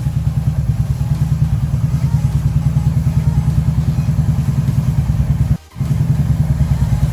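Motorcycle engine running at idle close by, a steady, fast, even low putter that breaks off for a moment a little over five seconds in.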